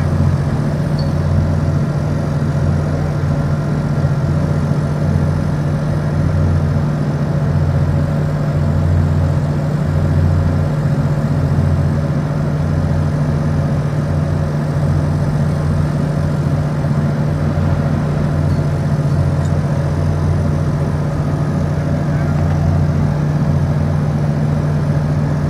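Heavy diesel engines of mobile cranes running steadily while hoisting a load: a loud, low, even hum with a deeper throb that swells and fades every second or two.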